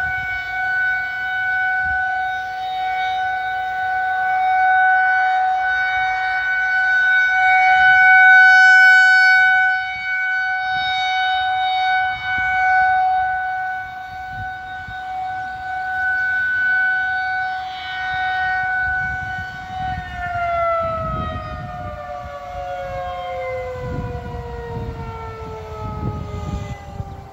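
Federal Signal 2001-SRNB civil defense siren sounding its steady alert signal, a single sustained tone whose loudness swells and fades every few seconds as the rotating head sweeps past. About 20 seconds in the tone ends and the pitch falls steadily as the siren winds down.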